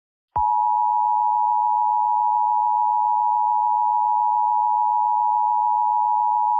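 Emergency Alert System attention signal: a loud, steady electronic tone that starts about a third of a second in and holds without a break or change in pitch.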